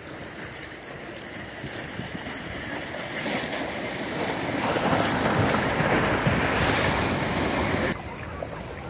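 Small ocean waves washing in over shallow water, the surf noise swelling to a loud rush and then cutting off suddenly near the end.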